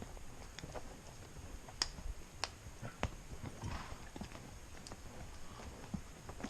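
Horse's hooves clip-clopping as it walks with a rider on its back, a string of uneven knocks.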